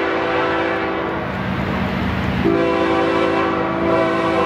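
Air horn of an approaching CN diesel freight locomotive. It sounds a long chord that breaks off about a second in, then sounds again about two and a half seconds in and is held, over a low rumble.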